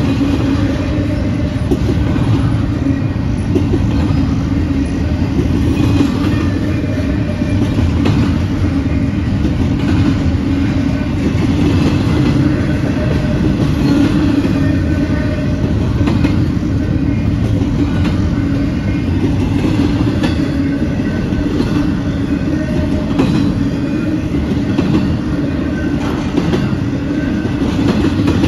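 Intermodal freight train cars rolling past at speed: a steady, loud rumble of steel wheels on the rails, with irregular clacks from the wheels.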